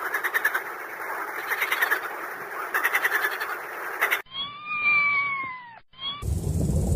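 A dense chorus of rapidly pulsing animal calls, like a frog chorus, for about four seconds, then it cuts off. A single long clear call follows, sagging slightly in pitch, then a short call. Near the end a loud low rumble begins.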